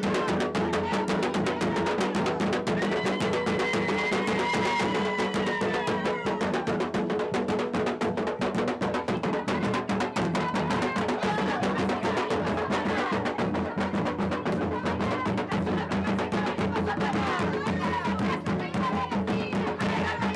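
Several barrel drums with skin heads beaten in a fast, dense, continuous rhythm, with voices rising over the drumming at times.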